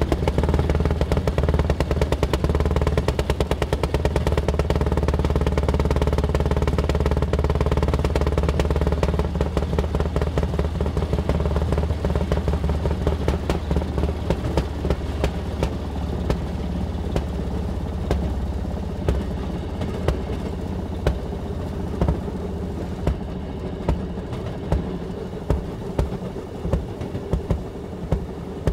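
Rail speeder's small engine running steadily with a rapid clatter as it rolls along the track. About halfway in the engine note eases, and in the second half sharp clicks about once a second stand out as its wheels pass over the rail joints.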